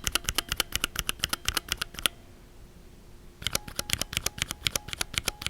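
Two runs of rapid mechanical key-switch presses and releases. The first is the Gateron Linjar linear switch, with a faint, lower-pitched spring ping. The second, about three and a half seconds in, is the Cherry retooled black switch, whose spring ping is higher-pitched.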